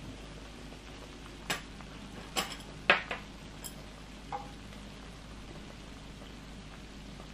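Red sauce with octopus, pork and shrimp bubbling and sizzling steadily on a griddle pan, with a few sharp utensil clicks about one and a half to four and a half seconds in, the loudest about three seconds in.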